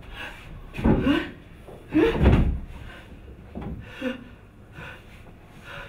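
Two heavy thumps on a hollow wooden stage riser, about a second apart, with short voiced sounds (grunts or exclamations) over them, then a few lighter knocks and shuffling.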